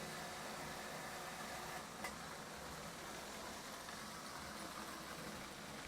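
Marx toy train locomotive running around the track, its electric motor whirring steadily, with a small click about two seconds in.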